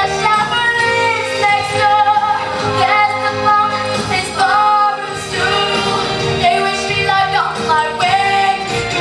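A young girl singing a musical-theatre song solo, her voice gliding through long held notes over instrumental accompaniment.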